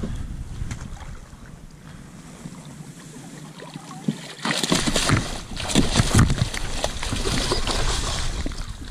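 A big pike thrashing at the surface in a landing net beside a kayak, splashing water hard in a flurry of sharp splashes from about halfway through. Before that, wind rumbles on the microphone.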